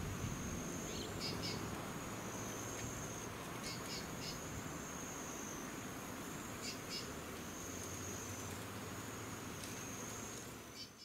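Steady high-pitched insect trilling, with short bursts of bird chirps several times over it and a faint low hum in the second half.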